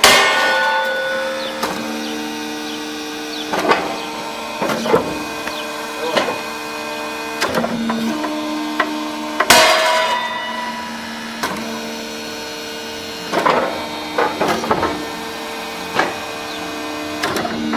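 Hydraulic rail-breaking press running with a steady hum, with scattered clanks of steel rail. Twice, once at the start and again about nine and a half seconds in, a loud sharp crack rings out as a rail snaps.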